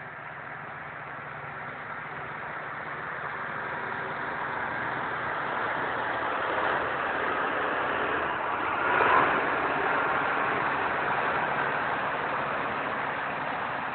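Caterpillar 120G motor grader's diesel engine running steadily, growing louder over the first several seconds, with a brief louder moment about nine seconds in.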